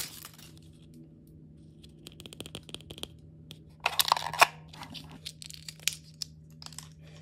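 Hands handling the small plastic pieces of an L.O.L. Surprise toy and a foil wrapper: scattered light plastic clicks and rustling, with a louder cluster of clicks and crinkling about four seconds in. A faint steady hum runs underneath.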